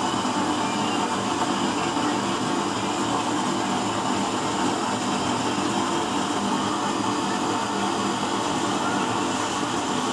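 Used-oil burner stove burning with a blue flame: a steady, even rushing noise with a faint steady hum running through it.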